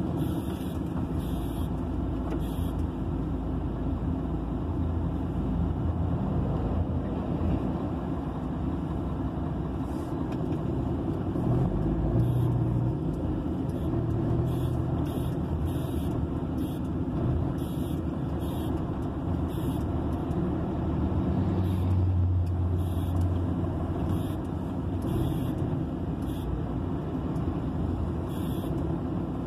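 Inside a truck cab: the truck's diesel engine running with a steady low rumble and tyre noise as it rolls slowly along the roadside shoulder. The rumble swells twice as other vehicles pass on the highway, and a faint ticking comes about once a second.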